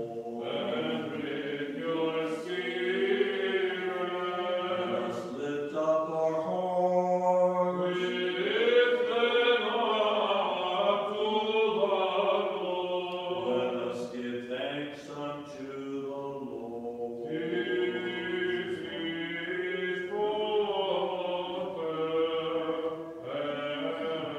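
Byzantine chant of the Greek Orthodox Divine Liturgy: unaccompanied singing in long melodic phrases with brief pauses for breath.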